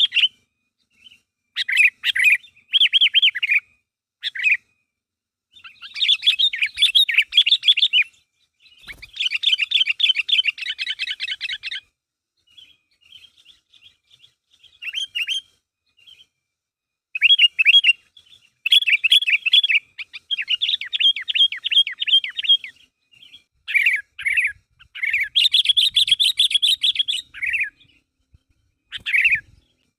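Sooty-headed bulbul (kutilang) chattering in fast runs of repeated notes, in bouts of one to three seconds broken by short pauses.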